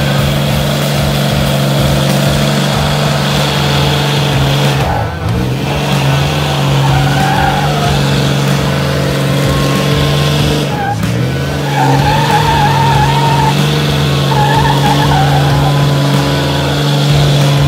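Pickup truck engines held at high revs with tires spinning on dirt in a tug-of-war pull. The engine note drops and comes back up twice, and wavering squeals rise over it in the second half.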